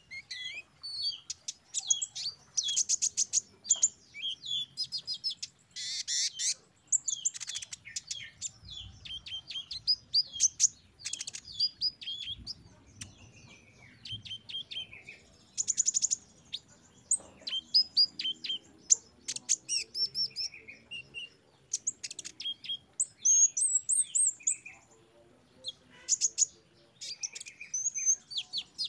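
Kolibri ninja (copper-throated sunbird) singing a fast, varied song of high chirps, trills and short whistled glides, broken by brief pauses.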